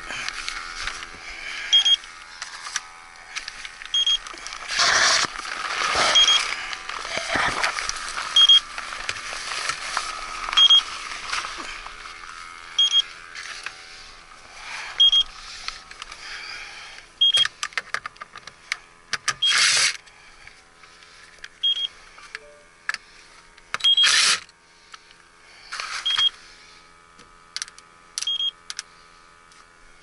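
TIF electronic refrigerant leak detector giving short high beeps at a steady slow rate of about one every two seconds. The rate never speeds up, so it is reading no refrigerant. Under it is rustling and scuffing of movement in the crawl space, with a few louder scrapes.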